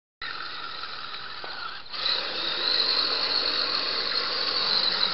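Electric motor and geartrain of a scale RC rock crawler (Everest-10/SCX10 hybrid) whining steadily as it churns through a muddy, water-filled ditch, with water splashing from the wheels. The sound starts abruptly just after the beginning and grows louder about two seconds in as the truck pushes through the mud.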